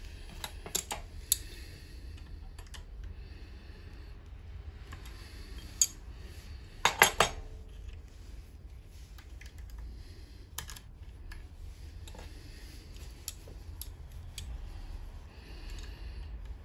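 Small metal parts clicking and clacking as they are handled at a steel bench vise: a galvanized wire thimble, a screw eye, the vise's sliding T-handle and pliers. There are scattered sharp clicks, and the loudest is a quick run of three clacks about seven seconds in.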